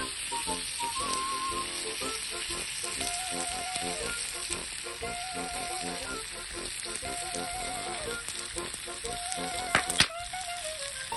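Food sizzling as it fries in a pan, a steady hiss, with soft background music carrying a simple melody. Two sharp clicks come near the end.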